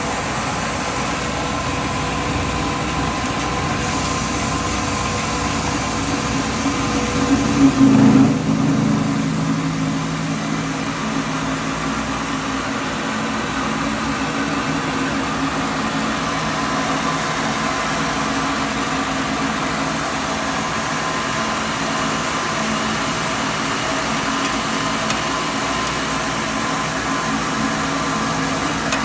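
Rice milling machine running steadily with a mechanical hum, rising briefly to a louder surge about eight seconds in before settling back.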